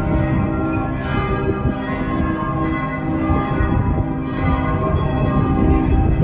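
The bells of St. Vitus Cathedral ringing together, many bell tones overlapping and sounding on without a break.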